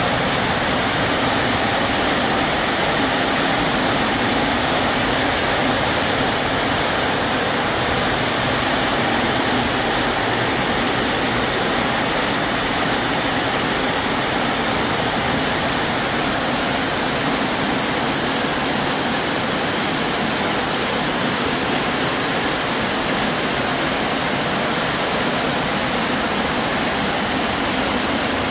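Heavy rain pouring down steadily, a loud, even rushing hiss with no let-up.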